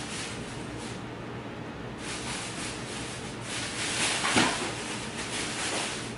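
Plastic grocery bags rustling and crinkling as items are handled, in irregular surges that peak about four seconds in.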